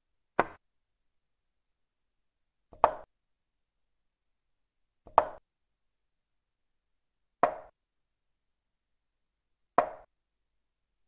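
Chess software's piece-move sound effect: five short wooden-sounding clicks, one for each move played, about every two and a half seconds, with dead silence between them.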